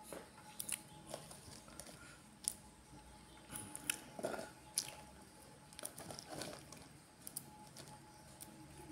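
Faint scattered clicks and small crunching, squishing sounds of fingers working a green vegetable at a table, with soft sniffles from a woman who is crying.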